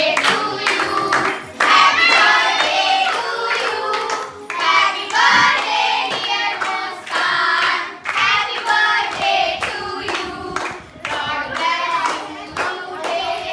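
A group of voices singing a birthday song together, with hands clapping along.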